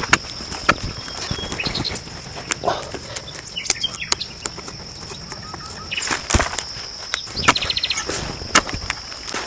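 Scattered knocks and rustles, with a steady high whine throughout and several short bird chirps, including a quick run of chirps near the end.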